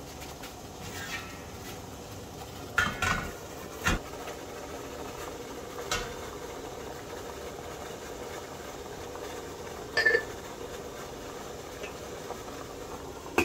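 Water boiling in a stainless steel pot on a gas stove gives a steady bubbling hiss. Metal clanks come about 3 and 4 seconds in as the steamer tray goes on. A ceramic bowl taps down on the tray near 6 seconds, and a plate clinks with a ringing tone onto the bowl near 10 seconds.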